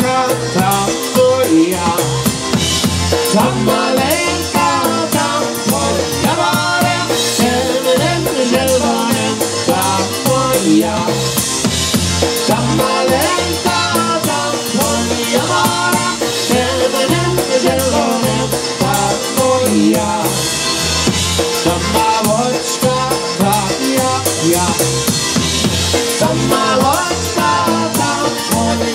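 Live Polish-style polka band playing a dance number: accordion, drum kit and electric bass over a steady, even beat.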